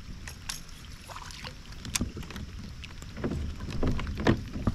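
Water splashing and scattered clicks and knocks as a hooked bass is brought alongside a fishing kayak and scooped into a landing net, busier and louder in the second half.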